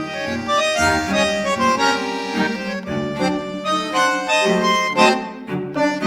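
Background music with a melody of reed- or wind-like instrument tones over a steady accompaniment.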